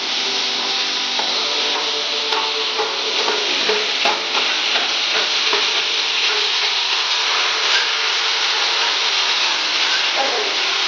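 Food sizzling in hot oil in a pan while being stirred with a spatula: a steady, loud frying hiss with light scraping ticks.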